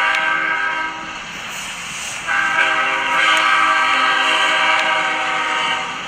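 Train horn blowing: one blast ends about a second in. After a short gap filled with the train's running noise, a second long blast starts about two seconds in and holds for over three seconds.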